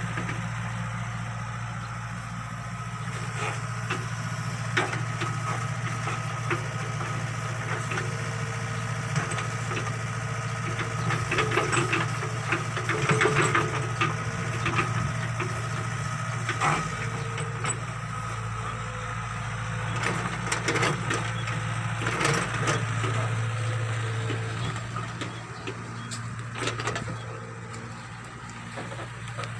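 Backhoe excavator's diesel engine running steadily, with clusters of knocks, clanks and scraping as the bucket digs into the ground and dumps its load.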